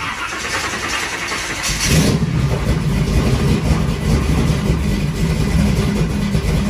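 Supercharged big-block Chevy V8 on newly installed Holley Terminator X fuel injection, cranking on the starter for about two seconds, then firing and running loudly.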